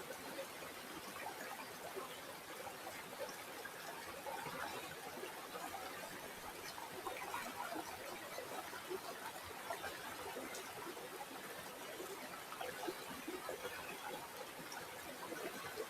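Shallow stream water trickling and babbling over stones, a steady fine splashing without pauses.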